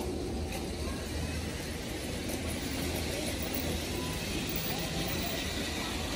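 Large-scale garden railway model train running along its outdoor track: a steady low rumble with no distinct clicks.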